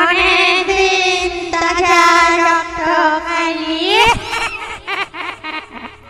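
Ghostly wailing voice horror effect: a high, singing-like wail with wavering vibrato that starts suddenly and holds one pitch, slides upward about four seconds in, then breaks into short stuttering fragments.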